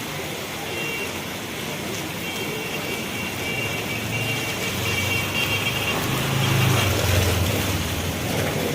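Heavy rain falling steadily. A motor vehicle passes on the wet road partway through; its engine swells to its loudest about seven seconds in.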